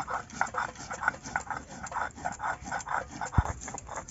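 Stone roller grinding soaked rice on a stone slab (shil-nora): quick, rhythmic wet scraping strokes, about four a second. One sharp knock about three and a half seconds in.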